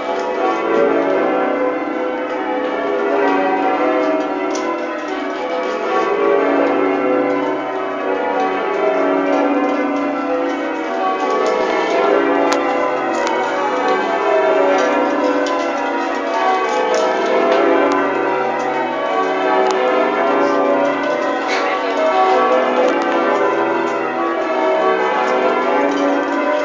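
A ring of twelve church bells, the tenor weighing 42 cwt 2 qr 25 lb and tuned to B, rung in changes: a continuous, even succession of bell strokes whose tones overlap and ring on into one another.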